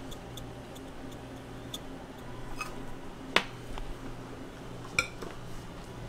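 Light ticks and two sharp clicks, about three and a half and five seconds in, from handling at a shop counter, over a steady low hum.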